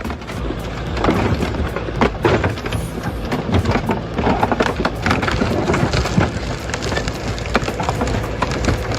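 Dense, irregular crunching and cracking over a steady low rumble: a heavy machine breaking up a vehicle.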